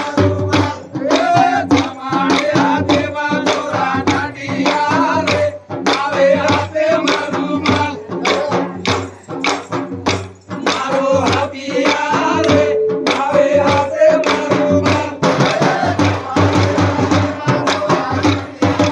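Banjara Holi phag folk song sung by men, over a steady beat of drum and sharp clacks of wooden dance sticks struck together.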